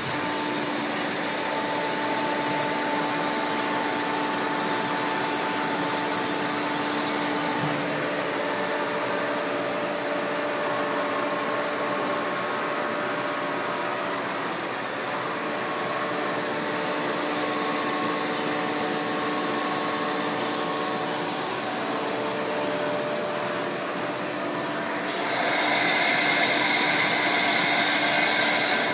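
Wire EDM machine running: a steady whirring drone with a few faint steady tones. A louder hiss comes in near the end.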